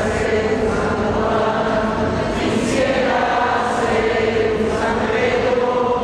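A group of voices singing a slow hymn together, holding long notes that move to a new pitch every second or two.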